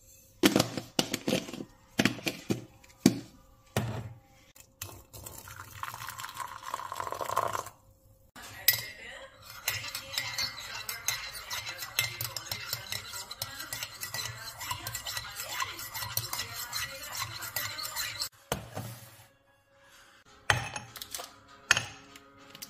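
Teaspoon and glass jar clinking against a ceramic mug as instant coffee granules go in, then water poured into the mug with a rising pitch as it fills, then a spoon stirring the coffee round the mug with a long run of quick scraping clinks. A few sharper clinks follow near the end.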